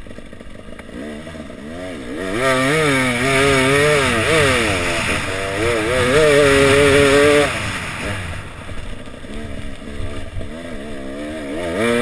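Off-road enduro motorcycle engine heard from on board, revving up and down as the rider works the throttle and gears over the dirt track. The engine pitch climbs in repeated sweeps and holds high for a stretch about halfway in. It then drops off and begins climbing again near the end.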